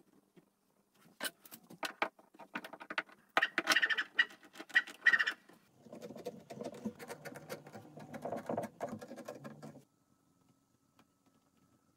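Clamps being handled and tightened on a glue-up: a run of sharp clicks and rattles, loudest in the middle, then a softer, lower rasping stretch that stops abruptly about ten seconds in.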